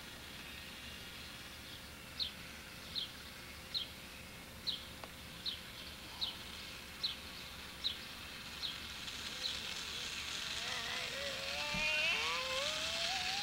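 Faint whine of a toy remote-controlled car's small electric motor, rising in pitch over the last few seconds. Before it comes a run of about ten short, high chirps, evenly spaced a little under a second apart.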